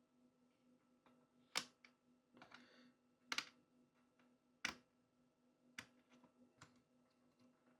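Sparse sharp clicks and taps from handling a 1:18 scale model car, about five louder ones (one a quick double) spread out at irregular gaps, over a faint steady hum.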